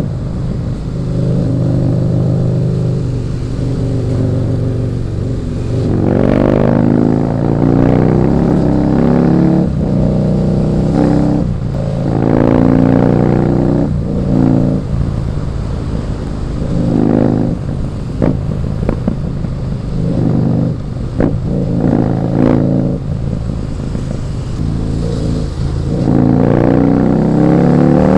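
Husqvarna Nuda 900R's parallel-twin engine and exhaust under way: a steady note at first, then repeated throttle rises with brief dips between them, like gear changes and blips, and a strong rev climb near the end.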